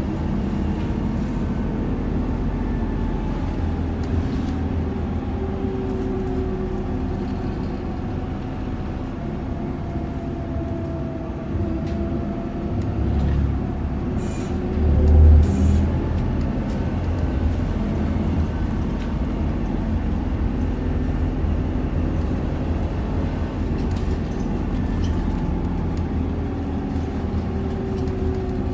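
Interior running noise of an Isuzu Erga city bus under way: a steady low rumble of the diesel engine and road noise, with a drivetrain note that rises and falls as the bus changes speed. A low thump stands out about halfway through.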